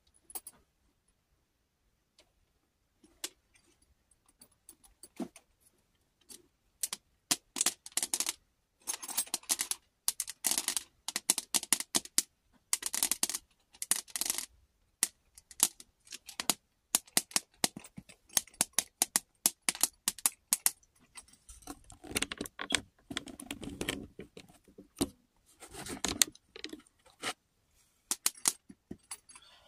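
Long fingernails tapping, clicking and scraping on a small hard-shell plastic case with a ribbed surface as it is handled. A few scattered taps at first, then quick dense runs of clicks and short scrapes from about seven seconds in.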